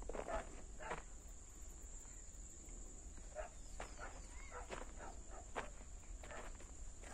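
A steady high-pitched whine over a low hum, with scattered short clicks and scuffs.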